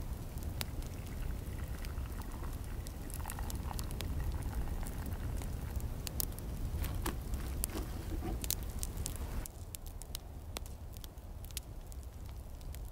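Wood campfire crackling, with irregular sharp pops and snaps. About nine and a half seconds in it turns quieter and duller.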